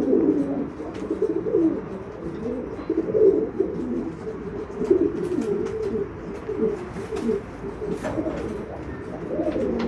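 Pigeons cooing steadily in low, rolling, overlapping calls, with a few faint clicks. This is courtship cooing as a pouter cock circles a hen with his crop puffed out.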